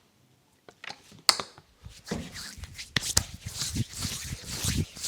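Hands massaging skin up close: a few sharp clicks, the loudest about a second in, then from about two seconds quick, irregular rubbing and slapping.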